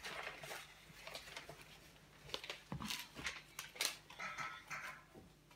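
Scattered light clicks and knocks with some brief rustling: small objects being handled.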